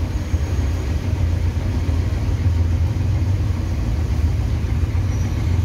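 City bus engine running at low revs, heard inside the cabin as a steady low rumble while the bus idles and creeps in a traffic jam.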